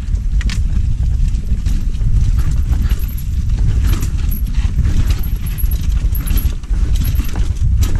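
Mountain bike rolling fast down a dirt trail: a steady rumble of wind and tyres on the microphone, with frequent rattling and clicking from the bike and its chain over bumps.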